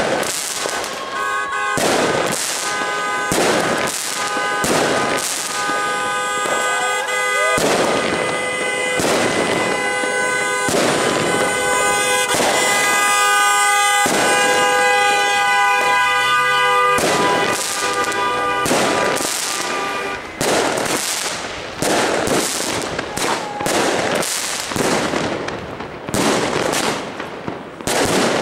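Fireworks going off in a string of irregular loud bangs, with car horns honking in long held tones through the first half, stopping a little past halfway.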